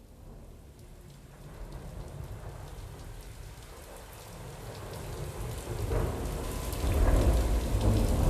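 Steady rain falling, fading in from silence and growing louder, with a low rumble of thunder swelling in the second half.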